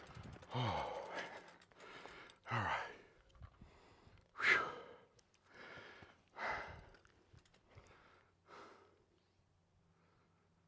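A man breathing hard in heavy, sighing exhales, about five of them roughly two seconds apart. The loudest comes near the middle, and they fade toward the end.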